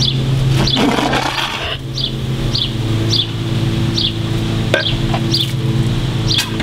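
Background music with a steady ticking beat over held bass chords. About a second in comes a short spluttering rush of noise as the foaming baking-soda-and-vinegar mix bursts from a full mouth.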